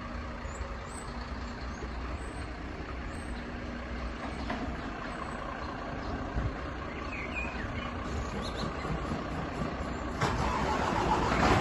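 Scania P410 tipper truck's diesel engine idling with a steady low hum. About ten seconds in, a louder rushing hiss with a deeper rumble comes in over it.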